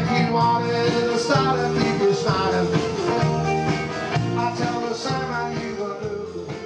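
Rock and roll music played live on electric guitar, with a band sound coming through a stage PA.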